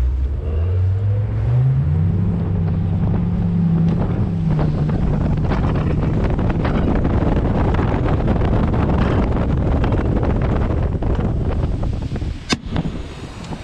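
A small boat's outboard motor speeds up over the first two seconds and then runs steadily, under heavy wind buffeting on the microphone and rushing water from the hull at speed. A single sharp knock sounds near the end.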